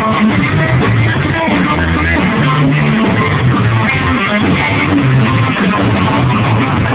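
Rock band playing live and loud, electric guitar riff over a bass line.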